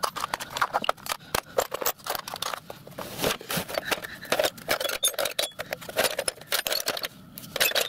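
Brass and bronze offcuts and fittings clinking and rattling against one another as a hand rummages through a metal storage drawer: a busy stream of irregular metallic clinks.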